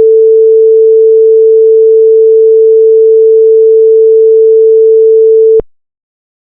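Simulated buzzer in the PicsimLab microcontroller simulator sounding one loud, steady, mid-pitched pure tone that cuts off abruptly about five and a half seconds in. It is the alert that the washing-machine cycle has completed.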